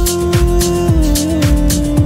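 Music from a children's song backing track: a steady electronic beat with deep drum hits about twice a second and hi-hats, under a long held note that steps down slightly in pitch about a second in.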